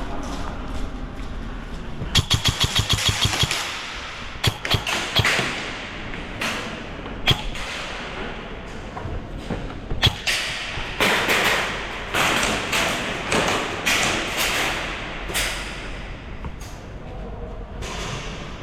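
Airsoft gun firing a full-auto burst of about a dozen shots, roughly ten a second, about two seconds in, followed by scattered single sharp shots.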